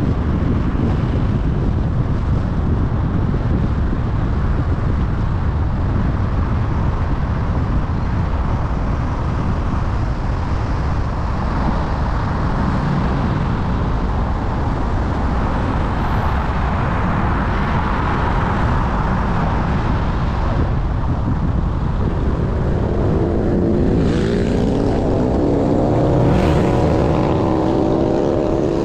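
Car driving through city traffic: a steady rumble of road, tyre and wind noise. Near the end another vehicle's engine passes close, its pitch rising and falling.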